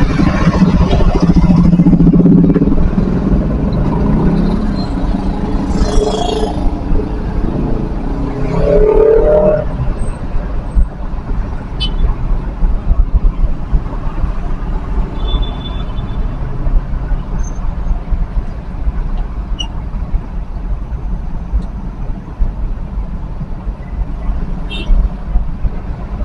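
Slow, congested city traffic heard from inside a moving vehicle: a steady low engine and road rumble. For the first ten seconds or so it is louder and busier, with voices and the engine of a minibus alongside; about halfway through there is a faint short beep.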